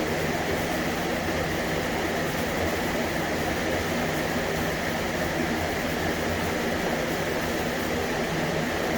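Steady mechanical drone with a low hum underneath, even and unchanging throughout.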